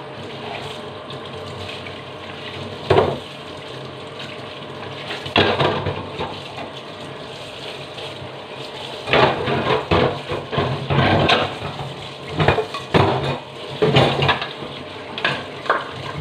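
Kitchen faucet running steadily into a stainless steel sink while a plastic exhaust fan cover is scrubbed and rinsed under the stream. Louder irregular bursts of splashing and handling come twice early on and then often from about nine seconds in.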